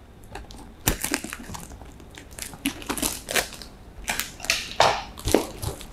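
Brown packing-tape wrapping on a parcel crackling and crinkling as it is cut with scissors and pulled open, in a run of irregular sharp crackles.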